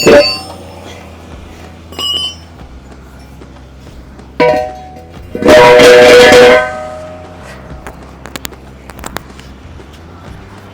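Metal tyre-shop tool work on a wheel rim: a few sharp metallic clanks that ring briefly. The loudest sound is a rattling, ringing burst about a second long, starting about five and a half seconds in.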